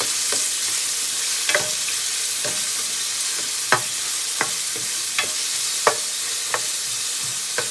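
Sliced onions and garlic sizzling steadily in vegetable oil in a skillet, while a utensil stirring them scrapes and taps against the pan about once a second.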